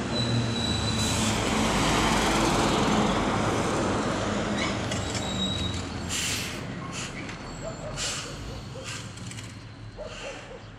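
A large road vehicle passing by, its engine and tyre noise swelling over the first few seconds and then fading away. A brief high squeal comes early and again about halfway, and several short hisses follow in the second half.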